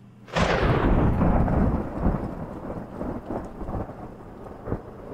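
A sudden crack of thunder rolls into a long rumble that fades over a few seconds, with a single sharp tick near the end.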